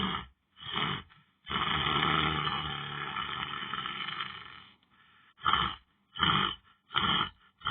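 A person snoring loudly: a few short rasping snorts, one long drawn-out snore of about three seconds, then three more short snorts.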